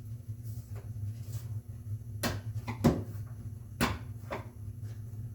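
A few sharp knocks and clicks of a chisel and wooden boards being handled on a workbench while excess cured epoxy is cleaned off, over a steady low hum. The knocks come in the second half, the loudest a little before the middle.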